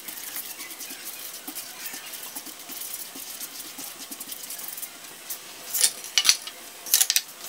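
Butter and melting jaggery sizzling and bubbling in a frying pan, with a spatula stirring and scraping through it. Near the end the spatula clicks sharply against the pan a few times. The jaggery is melting into the butter and the mixture has begun to foam up.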